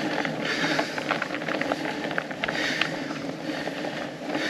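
Fat bike on a frozen, snowy trail: tyre and riding noise with many small clicks and rattles, and a hiss that swells and fades about once a second.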